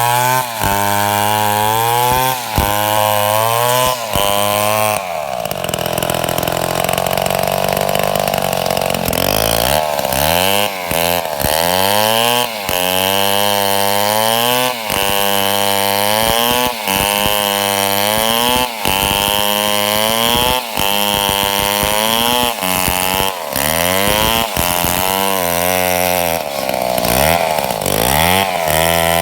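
Chainsaw running, its engine revving up and falling back in quick repeated cycles, with a steadier stretch about five seconds in.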